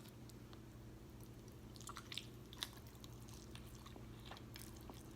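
Close-miked mouth sounds of someone eating tender smothered beef short ribs: soft wet chewing and lip smacks, with a cluster of sharp smacks about two seconds in and a few more near the end.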